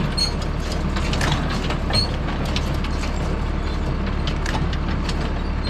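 Tractor engine running steadily with a hay baler's mechanism working, with a scatter of short mechanical clicks and knocks.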